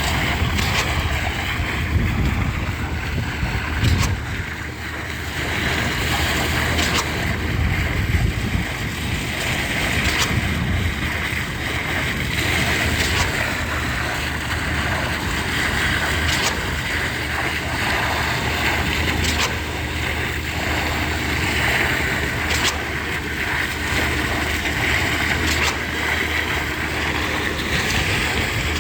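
Concrete pump running steadily during a slab pour, with wind on the microphone and a sharp knock every few seconds.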